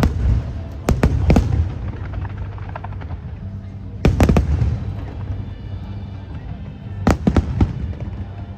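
Fireworks display: loud booming bursts in clusters, about a second in, about four seconds in and about seven seconds in, with crackling between them. Music plays underneath.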